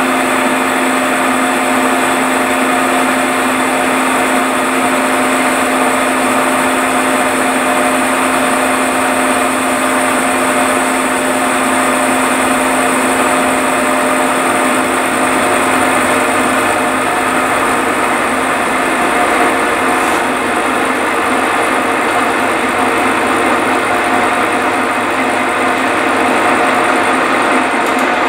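Milling machine running under load, its cutter taking a steady cut across a steam-engine cylinder casting held in the vise. Constant gear whine over an even cutting noise, with no change in pace.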